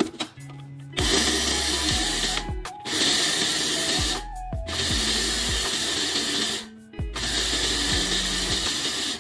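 Electric mixer-grinder grinding dry roasted spices in its small jar, run in four short pulses of one to two seconds with brief stops between them.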